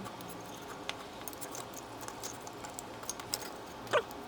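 Small scattered clicks and taps of parts being handled as the footswitch's press-in tabs are pushed to free it from the pedal's metal enclosure, with one louder click about four seconds in.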